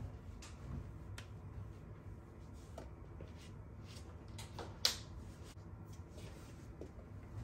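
Quiet household handling sounds while laundry is loaded into a front-loading washing machine: clothes pushed into the drum at the start, then a few light clicks and taps over a low room rumble, the sharpest tap about five seconds in.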